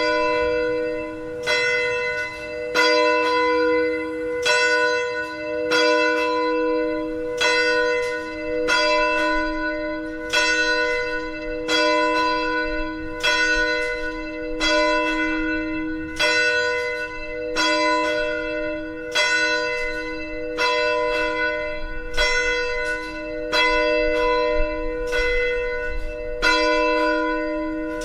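Bells chiming, struck about once or twice a second, each one ringing on under the next; the peal starts suddenly.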